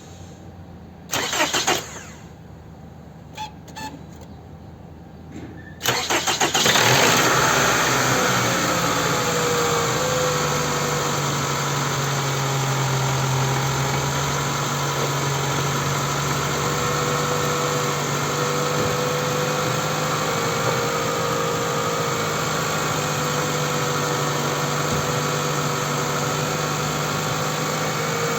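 Toyota Camry 2.4 2AZ-FE four-cylinder engine started from cold: after a short loud sound about a second in, the engine cranks and catches about six seconds in, flares briefly and settles into a steady cold idle. The owner complains of a noise on cold starts; no cause has been named.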